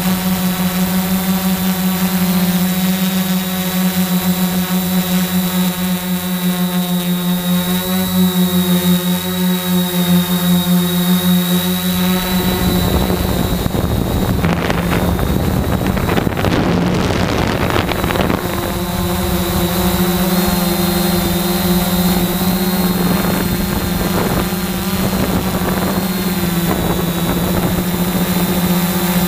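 Quadcopter drone's motors and propellers whining steadily with a high pitched hum, heard through its onboard camera. From about twelve seconds in to about nineteen seconds, a rush of noise covers the whine before it returns.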